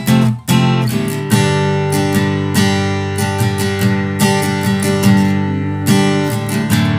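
HEX STING F300CE G acoustic-electric guitar (solid Sitka spruce top, sapele back and sides) being strummed in chords, each strum ringing on into the next, with a brief muted break about half a second in.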